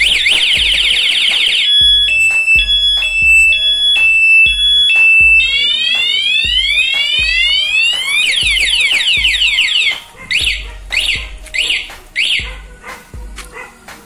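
Aftermarket motorcycle anti-theft alarm siren, set off by a touch to the bike while it is in lock mode. It cycles through patterns: fast rising whoops, a two-tone high-low wail, slower rising sweeps, then falling sweeps. About ten seconds in it drops to a few quieter separate chirps and then stops.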